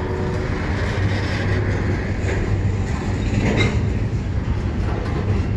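Double-stack intermodal well cars of a slow freight train rolling past, wheels rumbling steadily on the rails. A couple of sharp bangs from the cars about two and three and a half seconds in.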